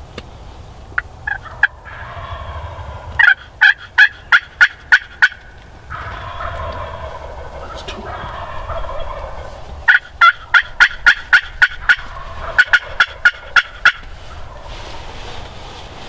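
Turkey calling: three quick runs of loud, sharp yelping notes, a few notes a second, with a lower warbling call between them.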